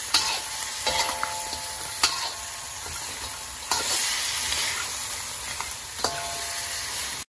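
Crab pieces sizzling in hot oil and chili sauce in a wok while a metal spatula stir-fries them, scraping and knocking against the pan every second or two. A couple of the knocks, about a second in and near the end, leave the wok ringing briefly.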